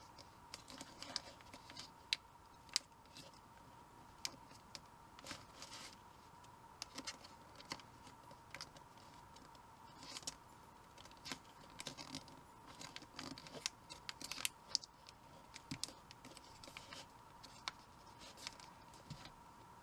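Origami paper being folded and creased by hand: irregular soft crinkles, clicks and rustles of the paper under the fingers, over a faint steady whine.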